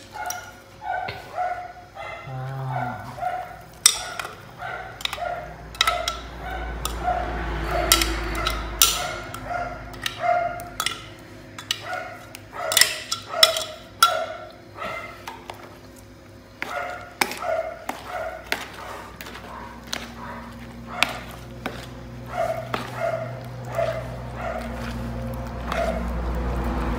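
A metal spoon scraping and clinking against a plastic bowl and a blender jar while a chili paste is scraped out and mixed into cut radish, with sharp clinks now and then. Behind it a dog yips over and over, short evenly spaced yips about two a second, pausing briefly around the middle.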